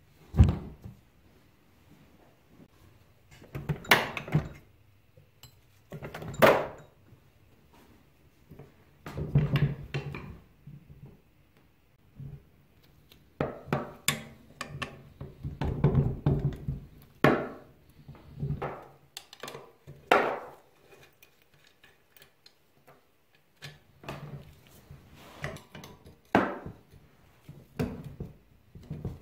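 Metal mower parts and a spanner knocking and clanking on a wooden workbench as a 1950s Ransomes Ace Mk.2 push reel mower is stripped: the drive wheel with its internal gear ring is pulled off its axle and a nut on the side plate is worked loose. There is a sharp knock about half a second in, then scattered separate clanks, some ringing briefly.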